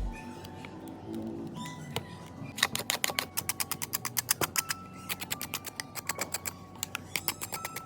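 A rapid run of small, sharp clicks, several a second, starting about two and a half seconds in: hand tools working on a smartphone's parts.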